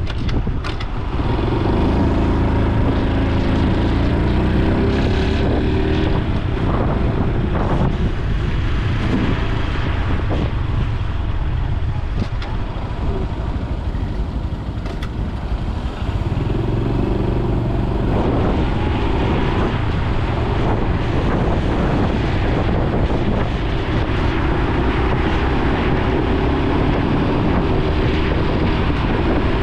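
Honda Super Cub C125's single-cylinder four-stroke engine and exhaust while riding. It climbs in pitch as the bike accelerates at the start, drops back and runs softer through the middle, then climbs again from about halfway.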